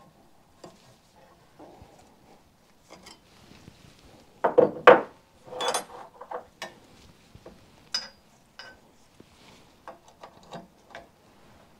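Metal hand tools and motorcycle fork parts clinking and knocking together as the damper rod is held up at the top of the compressed fork. Irregular light clinks, a cluster of louder knocks about four to six seconds in, and a short ringing clink about eight seconds in.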